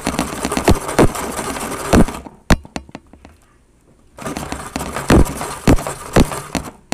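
Toy snow cone maker being hand-cranked, its blade grinding and crunching through ice cubes with sharp cracks; the cranking stops for about two seconds midway, then starts again.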